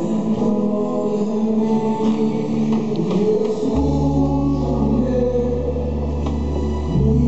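Christian worship song with singing voices; a deep held bass note comes in about halfway through.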